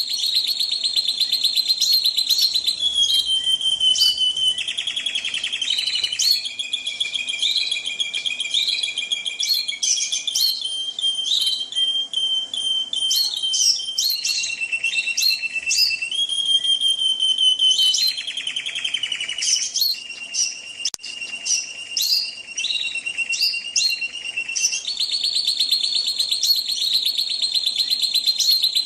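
Domestic canary singing a continuous song of rapid trills, each rolled at one pitch for a second or several before switching to a higher or lower note.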